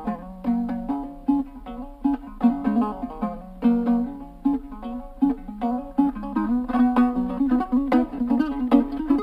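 Kazakh dombra, the two-stringed plucked lute, playing a küi: a fast strummed melody over a recurring low note.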